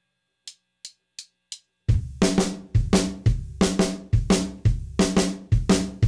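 Four light, evenly spaced clicks count in a song. Just under two seconds in, a full indie rock band comes in together on the beat: drum kit with kick, snare and cymbals, bass and guitars.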